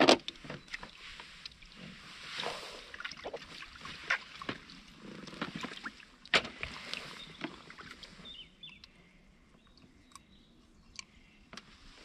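Water splashing and sloshing at the bank, with scattered knocks and clicks. It dies down after about eight seconds.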